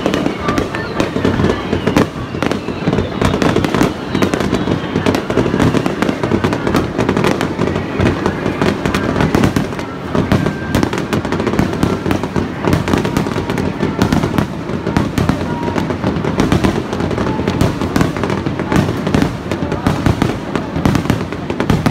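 Aerial fireworks shells bursting in rapid succession: a dense, unbroken run of bangs and crackling pops with no pause.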